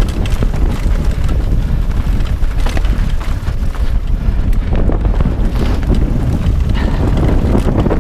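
Wind buffeting an action camera's microphone on a mountain bike riding fast down a dirt singletrack. Frequent small clicks and rattles from the bike jolting over the bumpy trail come through the rumble.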